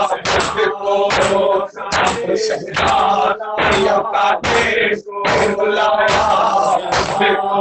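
Male voices chanting a Shia noha lament, with the men's palms slapping their chests (matam) in a regular beat about once a second.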